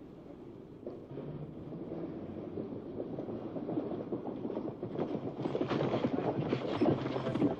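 Hoofbeats of many horses on a dirt road, a dense rumble of hooves that grows louder toward the end.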